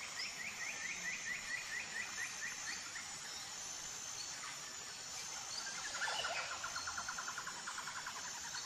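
Background nature sounds: a bird giving rapid runs of short repeated chirps, once at the start and again from about six seconds in, over a faint steady high insect buzz.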